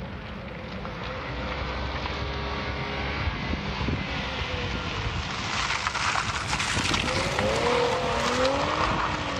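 An Infiniti G coupe's V6 engine, its note rising and falling with the throttle, grows louder as the car drives the autocross course and passes close by, with tyre noise loudest in the second half.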